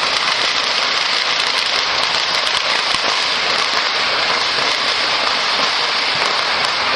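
Many distant fireworks going off at once, a dense, steady crackle like heavy rain with tiny pops all through it.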